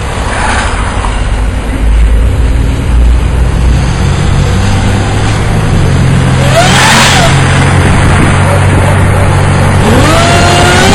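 1998 Pontiac Grand Prix GTP's supercharged 3.8-litre V6, fitted with a 3.4-inch supercharger pulley and a cold air intake, running loud. A whine rises in pitch near the end as the engine revs up.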